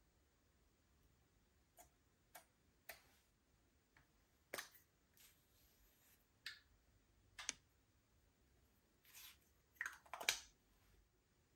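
Close-miked handling of slime and makeup: scattered sharp clicks and small pops, about a dozen in all, with a quick loud cluster near the end.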